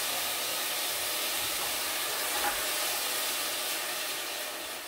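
Red wine sizzling and hissing as it hits a hot stainless sauté pan of sautéed onions and garlic, boiling off in a steady hiss that fades slowly toward the end.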